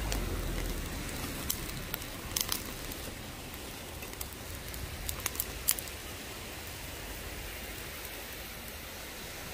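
Tomahawk steak grilling over an open fire: a steady sizzling hiss with scattered sharp crackles and pops, most of them between about one and six seconds in.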